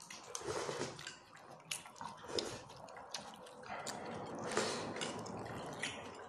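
Close-up eating sounds: chewing and mouth noises, with scattered light clicks of a spoon or fork against a bowl.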